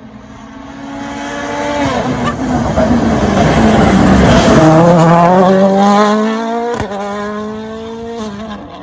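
Toyota Yaris WRC rally car with a 1.6-litre turbocharged four-cylinder engine driving past at speed. The engine note drops as it slows, then climbs as it accelerates away, with a sharp break for a gearshift about seven seconds in.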